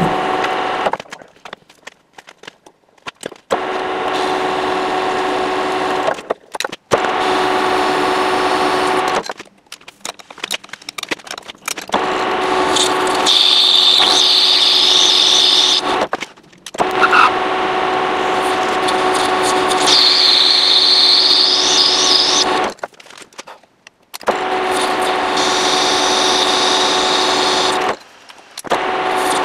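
Metal lathe running, turning a steel Tesla Model S axle half-shaft while a lathe tool cuts it, a steady machine sound with a fixed hum. Twice a high-pitched whine from the cut joins in for a few seconds, and the sound stops and starts again several times.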